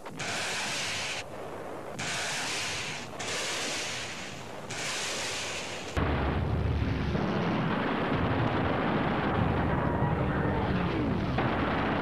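Battle sound effects of artillery fire and explosions. Four bursts of rushing hiss come in the first six seconds, then a louder continuous heavy rumble sets in.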